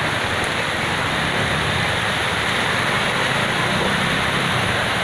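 Steady rushing of fast-flowing floodwater running down a street, with a car and motorbikes wading and splashing through it.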